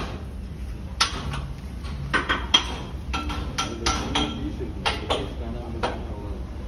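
Steel L-shaped key clinking and knocking against the hand brake adjuster fittings of an LHB railway coach as it is turned: a dozen or so irregular sharp metallic clicks, some ringing briefly.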